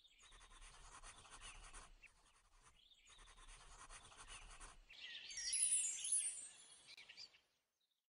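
Pencil scratching on paper in a few drawn-out strokes, the sound of lettering being written. It turns louder and higher about five seconds in, with falling tones running through it, then stops abruptly.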